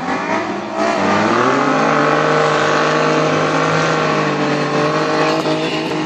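Stock car engine revving up over about two seconds, then held at high revs, easing off near the end.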